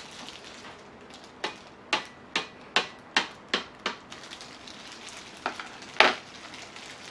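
Kitchen knife stabbing down through a large set gelatin grape jelly on a stainless-steel tray, in quick sharp strokes: a run of about seven, roughly two and a half a second, then two more a little later, the last the loudest.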